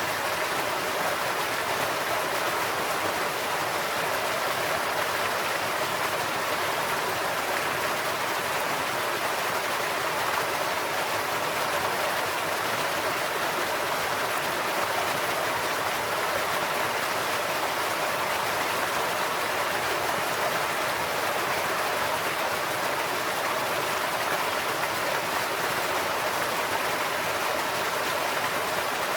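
Stream water flowing across a man-made farm road and falling over its edge: a steady, even rush of splashing water.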